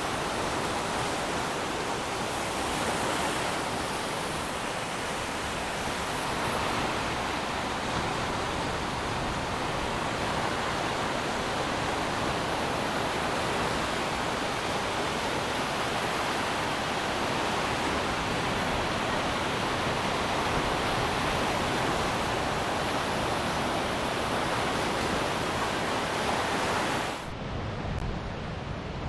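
Sea surf washing in a steady, even rush. Near the end it switches abruptly to a duller, lower rush with the hiss gone.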